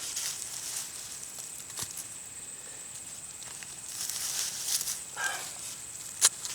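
Soil and potato foliage rustling and scraping as potatoes are dug up, with a sharp click near the end.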